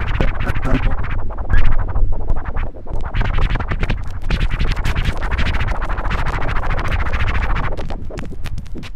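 Vinyl record scratched and pushed by hand on a turntable, cut up with many sharp stops over a dense electronic-sounding music bed with a heavy low end.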